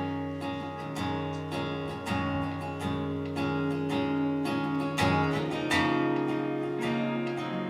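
Acoustic guitar strummed at about two strokes a second, starting suddenly: the instrumental intro of a song, before any singing.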